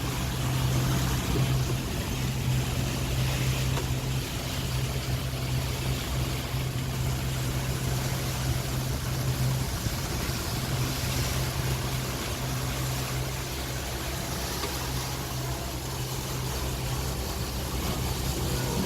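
Regal 28 Express cruiser's engine running steadily at low speed, off plane, a constant low hum with the hiss of water alongside.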